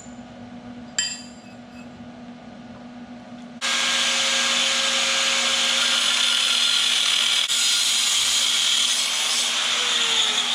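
Angle grinder with a cut-off wheel biting into metal, starting abruptly about a third of the way in and cutting steadily, with a high, hissing grind. A single metallic clank comes about a second in, before the cut.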